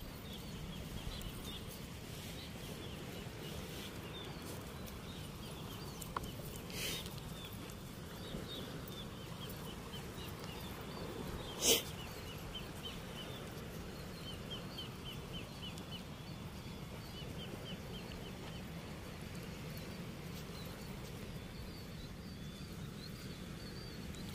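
Repeated trains of short, high chirps from a small animal, several to the second, over a steady low rush. A single sharp click comes about twelve seconds in.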